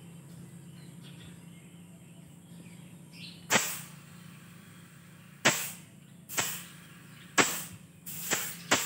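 Six short hissing blasts of compressed air from a shop air hose whose nozzle is pressed against a rubber football, starting about three and a half seconds in and coming roughly once a second near the end: the ball being pumped up in short bursts. A steady low hum runs underneath.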